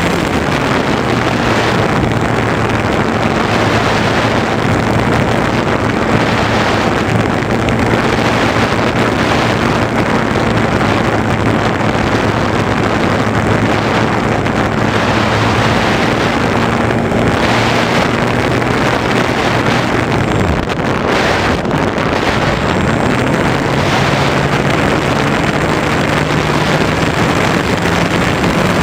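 Onboard sound of an Easy Glider Pro RC motor glider in flight: loud rushing airflow over the camera microphone with the steady hum of its electric motor and propeller. The hum breaks off about two-thirds of the way through and comes back a couple of seconds later, climbing to a higher pitch as the throttle is changed.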